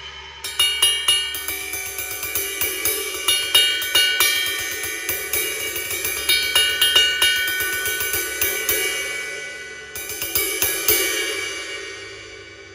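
Cymbals struck in a quick run of hits that ring on over each other, the ringing thinning out a little before ten seconds in, then a second run of strikes whose ringing dies away near the end.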